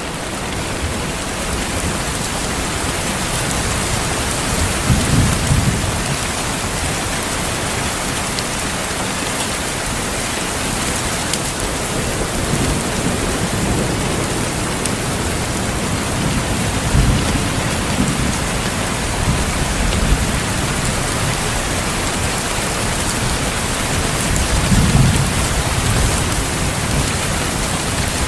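Steady heavy rain with several low rumbles of thunder, the strongest about five seconds in and near the end.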